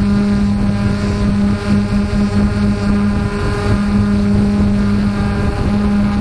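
An engine running steadily at an even speed, a constant drone with a noisy rumble underneath.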